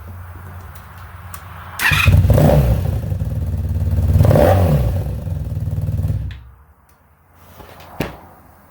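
Honda VF500R V4 motorcycle engine running at idle, then revved up and back down twice, loudly, before it is shut off and falls quiet; a single sharp click follows near the end.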